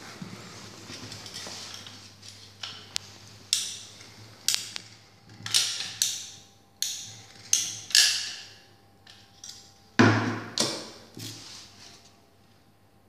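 Manual caulking gun being pumped: a series of about seven sharp clacks over some five seconds as it pushes out a bead of adhesive. About ten seconds in, a heavier thump as a stone tile is set down on the glued wooden block, with a smaller knock just after.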